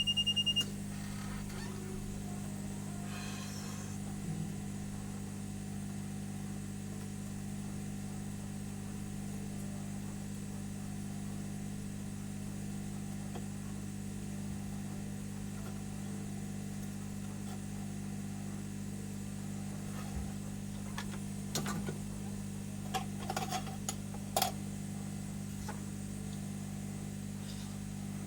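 Steady low hum of running workbench equipment, with a high beeping tone that cuts off about half a second in and a few light clicks and taps near the end.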